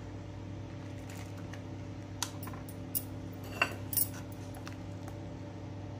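A steel ladle clinking a few times against a steel kadai while scooping up sambar, the sharpest knocks about three and a half and four seconds in, over a steady low hum.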